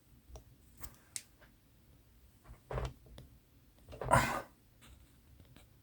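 Faint, scattered clicks and handling noises of small gun parts being worked by hand, with a short rustle about four seconds in.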